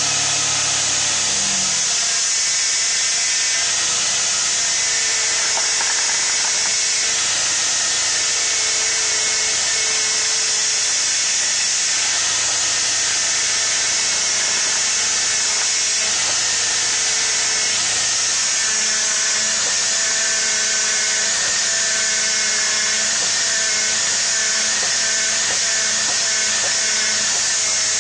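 Steady loud hiss with faint, slightly drifting whining tones from a Jeep Grand Cherokee WJ's running engine, heard from under the front end.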